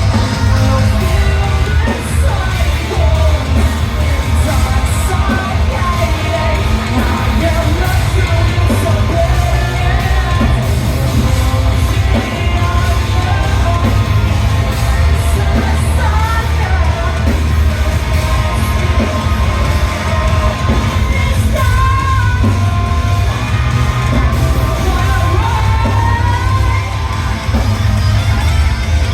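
Live rock band playing loud, with yelled, shouted vocals over electric guitar.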